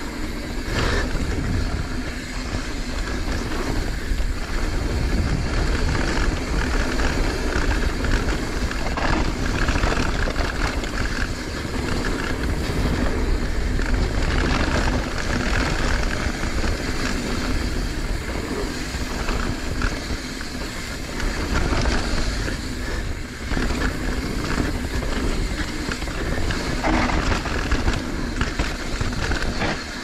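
Mountain bike riding fast down a dirt downhill trail: wind buffeting the action camera's microphone, with tyre roar and the bike clattering over rough ground in many short knocks.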